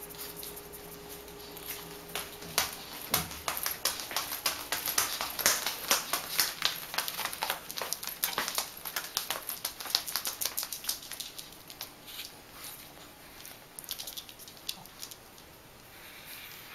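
A small dog's booties tapping and scuffing on a hard wooden floor as it walks, a quick, uneven run of clicks that thins out near the end.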